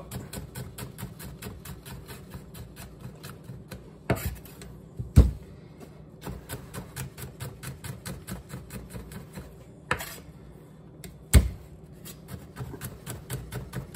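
Knife chopping garlic cloves on a wooden cutting board: a quick, even run of taps about five a second, with a few louder knocks of the blade against the board.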